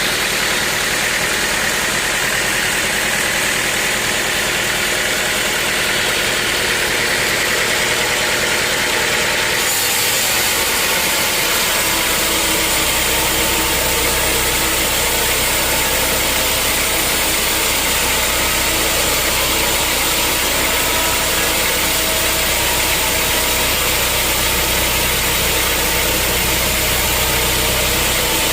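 Sawmill machinery running steadily with an engine-like hum. About ten seconds in the sound shifts, and a deeper steady hum sets in soon after.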